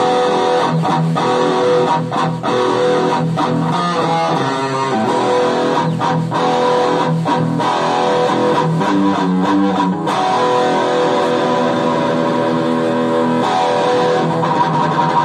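Electric guitar played through an amplifier, a run of black metal riffs with notes changing quickly.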